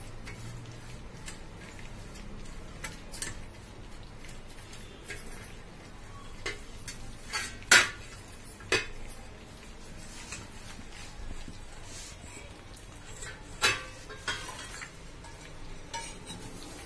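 A stainless steel plate being handled and greased by hand: light rubbing with scattered metallic clinks and knocks, the sharpest about halfway through and again later on.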